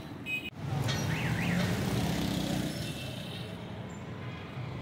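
Busy street traffic: motorcycle and car engines running past, with a brief wavering high tone about a second in.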